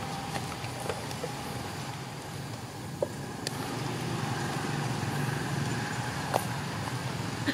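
Steady low rumble of outdoor background noise, with a few sharp clicks, the loudest about three seconds in and again about six seconds in.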